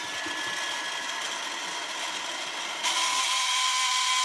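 A 2 kW electric fan heater running: a steady rush of air with a whine from its fan motor. It steps up louder about three seconds in.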